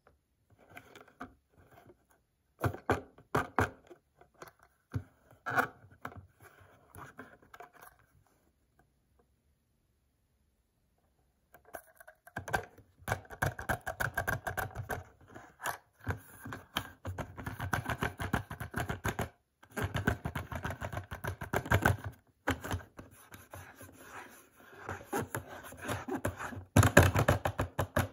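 Plastic blister packaging and cardboard backing card of a Hot Wheels car being handled and turned in the hands, giving irregular clicks and crackles. After a pause of a few seconds in the middle, the crackling comes back denser and keeps on.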